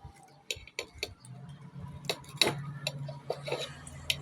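Scattered sharp metallic clicks and clinks of metal parts and tools being handled, with a low steady hum coming in about a second in.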